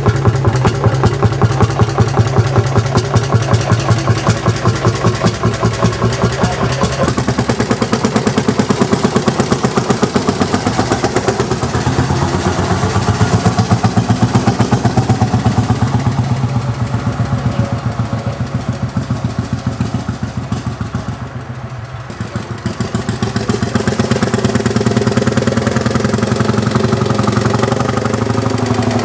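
Lanz Bulldog tractor's single-cylinder two-stroke hot-bulb engine running with an even, rapid pulsing beat. It gets quieter for a moment about three-quarters of the way through, then comes back up.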